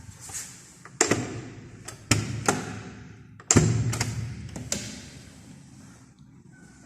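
Interior door being worked: a series of sharp clicks and knocks of the handle, latch and door, the loudest about three and a half seconds in, each ringing briefly in the room.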